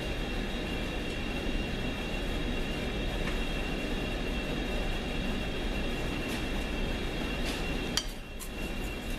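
1942 South Bend lathe running steadily, its motor and gearing humming with a steady high whine while turning a steel AR-15 bull barrel down under power feed. About eight seconds in there is a sharp click and the running gets a little quieter.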